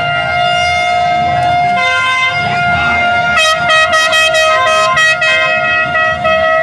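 Parade band music: held, horn-like notes that change pitch every second or two, joined about halfway by a quick, even percussion beat.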